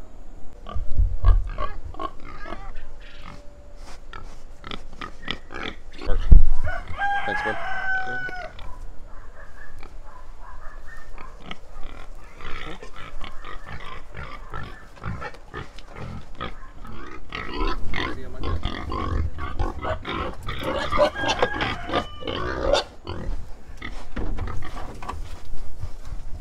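Pigs grunting and squealing, busiest in the second half, with scattered knocks and a couple of deep thumps.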